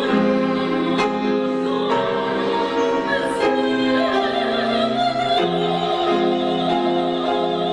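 A woman singing in an operatic style over instrumental accompaniment, holding a long high note with vibrato from about four seconds in.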